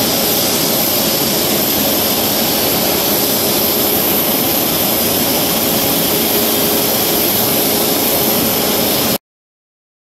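Boeing 737 MAX 8 at the stand with its jet turbines running: a steady loud rush with a high steady whine. It cuts off suddenly about nine seconds in.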